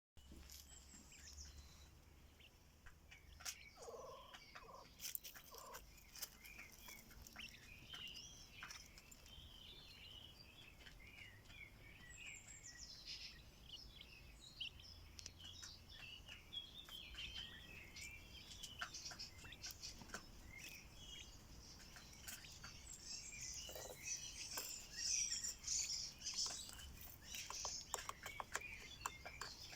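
Quails chirping and twittering quietly, with many short clicks and taps among the calls. The chirping grows busier and louder near the end.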